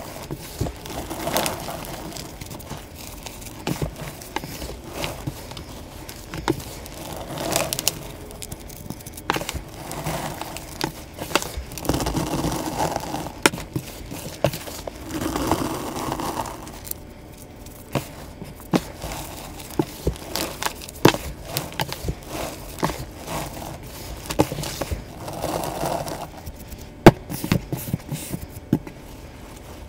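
Hands crushing, rubbing and patting powdery gym chalk and cornstarch reform in a tray: soft scraping and crackling with many small sharp taps, one louder tap near the end.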